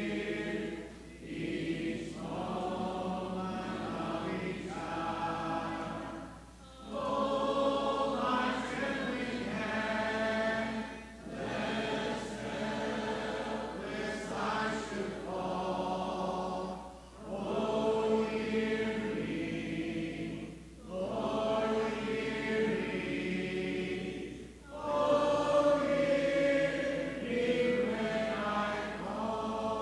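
Congregation singing a hymn a cappella in parts, unaccompanied voices in phrases of a few seconds with short breaks between the lines.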